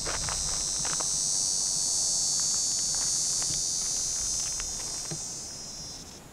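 Cicadas singing in a shrill, high drone that swells and then fades away near the end.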